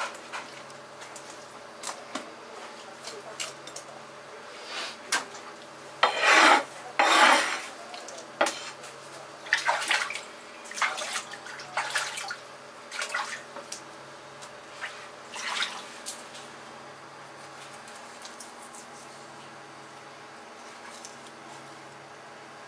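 Kitchen knife work on a whole amberjack on a plastic cutting board: scattered knocks and scrapes of the blade, with two louder rasping strokes about six and seven seconds in and several shorter ones after. Over the last few seconds the cutting stops.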